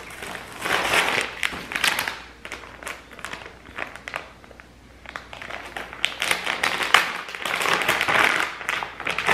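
Clear plastic zip-top bag crinkling and rustling as it is opened and handled, in two loud stretches, about a second in and again near the end, quieter in between.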